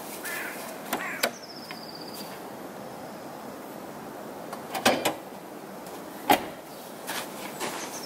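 Cab door of a GAZ Sobol van being worked: a couple of small latch clicks about a second in, then louder clunks near five seconds and one sharp knock after six seconds.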